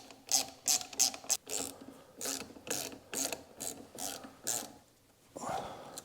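Hand ratchet clicking in quick, uneven strokes, about a dozen clicks, as the brake caliper's pad retaining pin is turned out, followed by a short softer scrape near the end.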